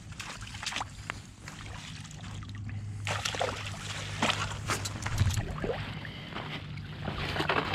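A hooked trout splashing in shallow water as a landing net is dipped in to scoop it, the splashes coming thick from about three seconds in, over a steady low hum.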